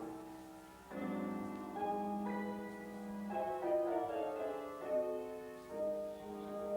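Piano music: sustained chords and a melody, with a brief lull about a second in.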